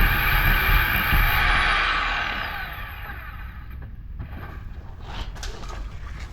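Rotary hammer drill running hard while drilling, then released about two seconds in and winding down, followed by a few light knocks and rattles.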